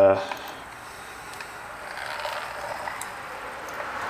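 Hand-cranked Genesee bench grinder being turned by its crank: a steady whirring from the gear drive and the spinning stone, a little louder partway through.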